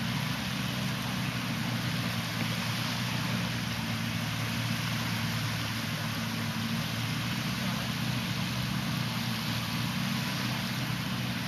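A boat engine running steadily as a low, unchanging drone, under a constant hiss of wind and sea.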